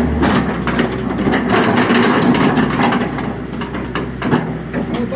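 Excavator running, a steady low engine drone under dense mechanical clatter with repeated knocks and clanks.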